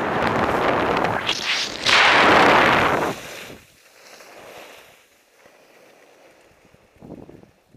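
Wind buffeting the microphone and skis scraping over packed snow at speed, a loud rushing noise that cuts off suddenly about three seconds in as the skier comes to a halt in a spray of snow. After that only faint rustling, with a brief louder rustle near the end.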